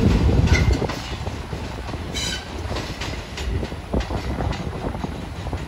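R46 subway train pulling away on an elevated steel structure, its wheels clacking over rail joints and switches. It gets quieter about a second in, and a brief wheel squeal rings out about two seconds in.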